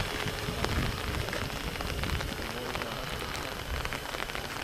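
A steady crackling hiss, with the faint wavering hum of a multicopter's rotors overhead.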